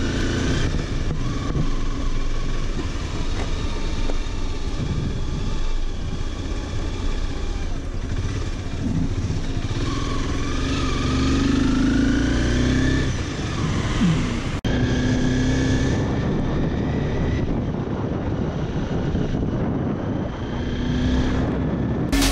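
Motorcycle under way, likely the rider's Honda CBR250R single-cylinder engine, running steadily with wind rush. The engine pitch rises as it accelerates from about ten to thirteen seconds in. There is a sudden break about two-thirds through, after which it runs on.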